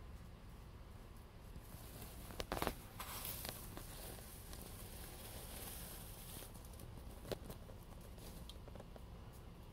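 Faint crunching and clicking of a chicken stepping on pea gravel, with a few sharper clicks about two and a half seconds in and another just past seven seconds.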